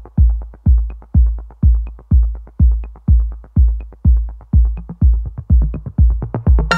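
Electronic dance music: a heavy kick drum on every beat, about two a second, with light ticks between the beats; a synth chord comes in near the end.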